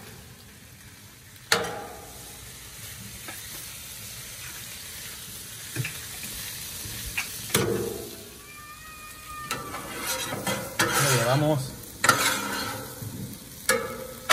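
Shrimp, potatoes and peppers sizzling on a Blackstone 36-inch flat-top griddle, with a steady frying hiss. A metal spatula scrapes and clacks against the griddle's steel top a few times as the food is tossed.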